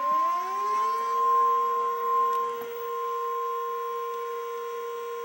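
Steady, single-pitched NOAA weather-radio warning alert tone (about 1050 Hz), heard together with an electromechanical warning siren. The siren finishes winding up about a second in and then holds a steady lower pitch.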